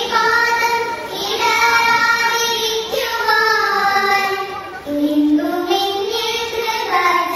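Young girls singing a slow melody together into a microphone, with long held notes that glide between pitches and brief breaths between phrases.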